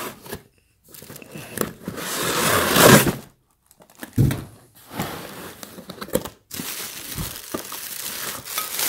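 A thin plastic bag crinkling and rustling as it is handled and pulled off a frying pan, with a short pause partway through. There is a dull knock of cardboard or the pan about four seconds in.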